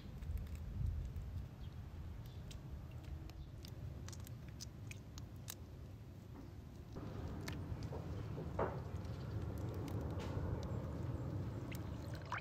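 Tiger shrimp being peeled by hand: small crackling and clicking snaps as the shells are pulled off, over a steady low rumble.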